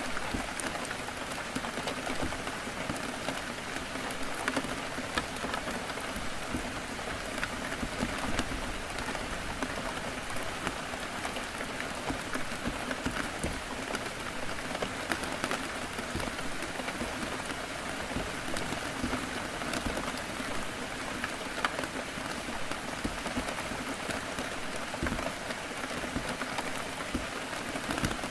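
Heavy rain on a window pane: a steady hiss of falling rain with many small drops tapping on the glass.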